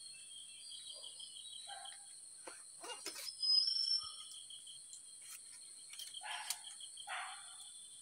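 Forest ambience: insects chirring steadily at a high pitch, with a pulsing trill under it. Footsteps and rustling through leaves and undergrowth come a few times, loudest about three and a half seconds in and again past six seconds. A short high chirp sounds around the first of these.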